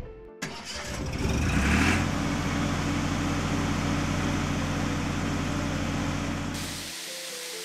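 Cartoon sound effect of a truck engine revving up and then running steadily as the vehicle drives, cutting off near the end.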